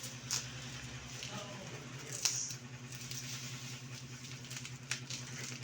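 Unboxing sounds: a package being handled, with three short crinkles or clicks, the loudest about two seconds in, over a steady low hum.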